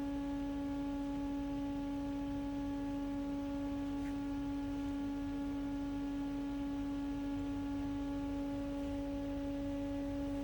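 Steady electrical hum from a powered-up Haas CNC machine: one constant low tone with overtones, unchanging while the control runs its memory test.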